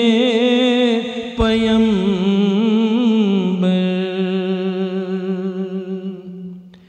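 A man's solo voice chanting a marsiya (Urdu elegy) in long, drawn-out notes with a wavering vibrato. He starts a new phrase about a second and a half in, and the held note fades away near the end.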